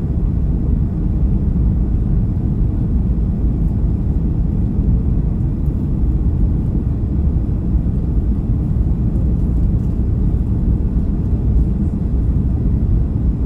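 Steady low cabin rumble inside a Boeing 737-300, from its CFM56-3 engines and the airflow, heard from a seat over the wing on final approach with the flaps extended.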